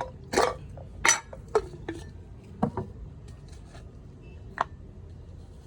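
Several sharp clinks and knocks of containers or utensils being handled: about five separate hits spread over a few seconds, the loudest in the first second and a half, over a low steady background hum.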